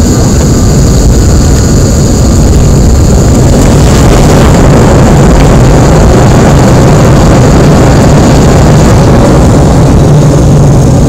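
Loud, steady cabin noise of a Bombardier CRJ700 rolling out after landing: the rear-mounted General Electric CF34 jet engines and the rumble of the landing roll. A high whine fades out about four seconds in, and a low steady hum comes in near the end.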